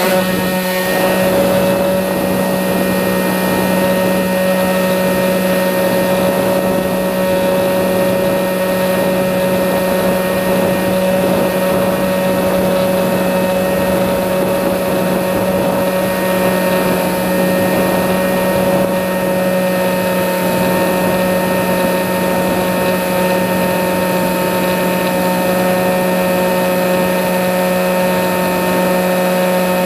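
Sky Eye FPV glider's electric motor and propeller running at a steady throttle, a constant whine over a rush of noise.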